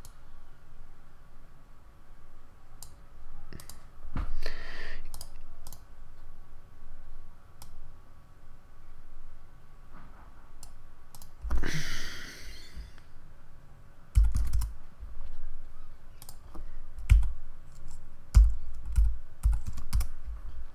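Irregular clicking and tapping of a computer keyboard and mouse as settings are changed in software. There are two short rushes of noise, about four seconds in and near the middle, and a run of low thumps in the last third.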